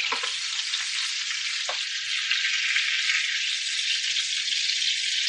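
Chicken thighs sizzling steadily as they sear skin side down in hot butter in a frying pan.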